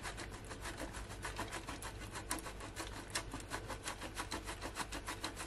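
Cheddar cheese being grated by hand on a metal grater: quick, even rasping strokes, many to the second.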